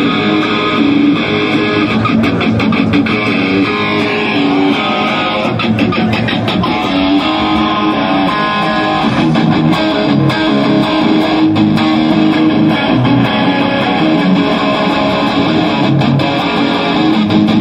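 Electric guitar playing rock through the Avid Eleven Rack's Bogner Ecstasy amp model, steady and loud throughout.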